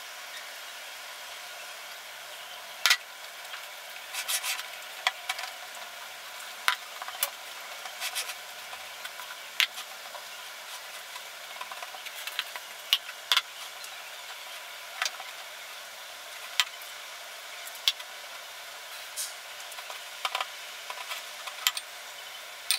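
Kitchen utensils knocking and scraping against a glass mixing bowl as chocolate cake batter is mixed by hand: irregular sharp clicks every second or two over a steady hiss.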